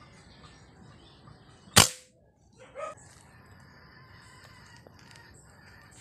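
A single sharp gunshot from a scoped hunting gun about two seconds in, the loudest sound, with a brief ring after it. A short rising call follows about a second later, over faint scattered bird chirps.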